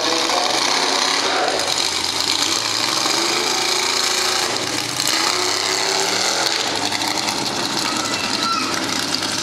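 Mega truck's engine revving, its pitch rising and falling several times in the middle, over a steady loud rushing noise.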